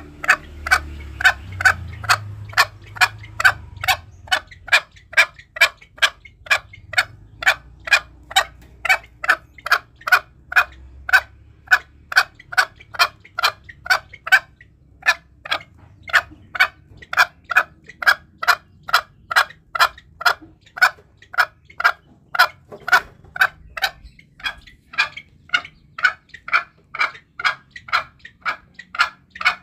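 Green junglefowl calling: a short note repeated steadily about twice a second, with a brief break about halfway through. This is a recorded call of the kind played to lure wild junglefowl.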